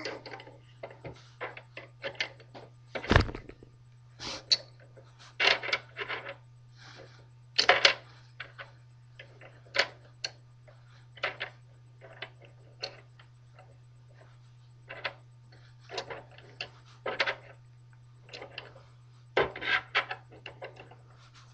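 Small plastic Calico Critters toy furniture and accessories being handled and set down: irregular clicks and taps, with a firmer knock about three seconds in, over a steady low hum.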